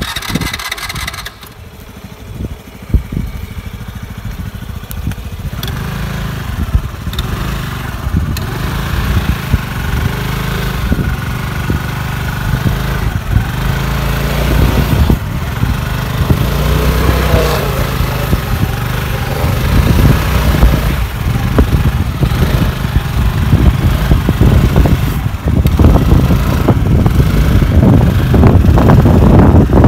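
Hero Maestro scooter's single-cylinder four-stroke engine running hard under throttle as it is driven through deep mud, rising and falling in pitch and getting louder toward the end.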